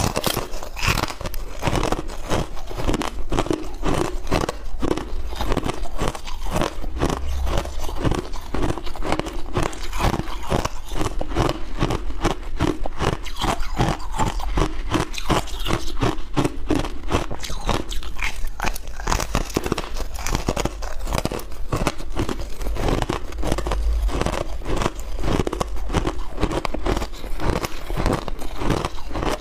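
Hard ice being bitten and chewed, close-miked: dense, rapid crunching and cracking with many crisp cracks each second.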